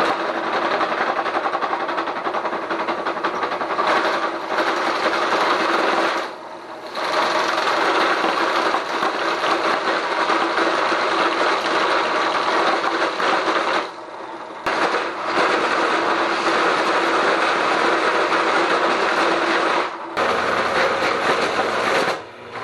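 Benchtop drill press running with its bit boring into a wooden log under load, a steady loud mechanical whir and cutting noise that eases off briefly about a third of the way in, near the middle, and twice near the end as the feed is let up. The press keeps turning under load, its drive pulley freshly tightened to the quill.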